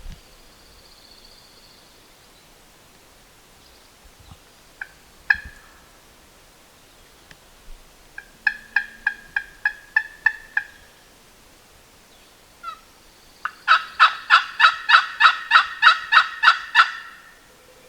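Turkey calling in two runs of evenly spaced sharp yelping notes at about four a second: a shorter run, then a longer, louder one of about a dozen notes.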